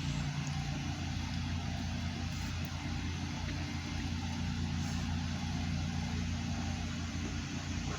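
A steady low motor hum with a faint hiss over it.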